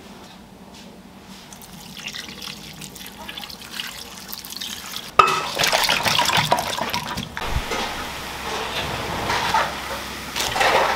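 A spoon stirring and scraping through raw duck pieces and ground spices in a pressure cooker, starting abruptly about five seconds in with wet, clattering noise. Later, a pot of noodles bubbling at the boil.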